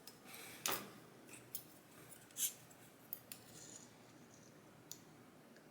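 Light metallic clicks and short scrapes of small steel tools and lock pins being handled while a dimple lock's driver pins are taken out; several separate clicks, two of them louder, a little under a second in and about halfway through.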